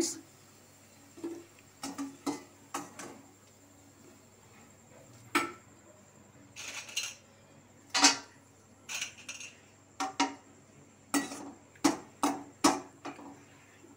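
A metal slotted skimmer clinking and knocking against a steel kadai in irregular short strikes, more of them in the second half, as fried puris are scooped out of the oil and raw ones are slid in.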